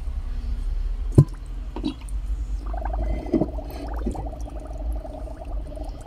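Water sloshing and dripping in a basin as a clay tagine is pressed down under the water to soak, with a sharp knock about a second in. A steady pitched tone comes in about halfway through.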